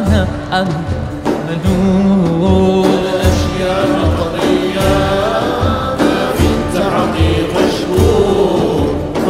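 Devotional song continuing: a singing voice with wavering held notes over a steady drum beat.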